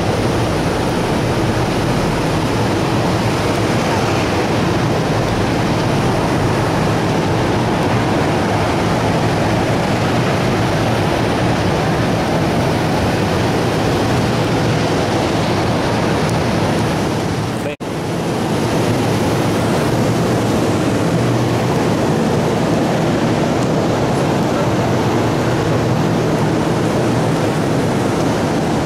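A loud, steady rushing noise, dropping out for an instant about 18 seconds in.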